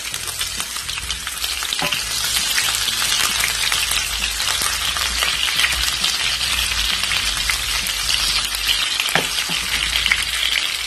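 Onion rings sizzling and crackling in plenty of hot oil in a frying pan, stirred with a wooden spoon; the sizzle gets louder about two seconds in.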